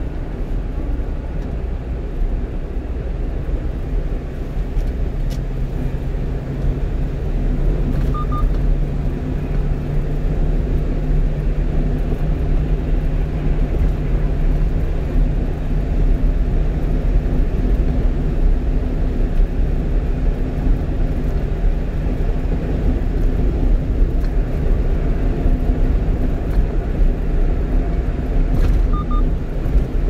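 Steady engine and road noise inside the cab of a one-ton truck cruising at highway speed, with a constant low engine drone. A short double beep sounds twice, about eight seconds in and again near the end.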